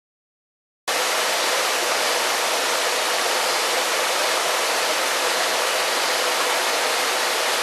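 Steady rushing of a waterfall, an even hiss that starts abruptly about a second in.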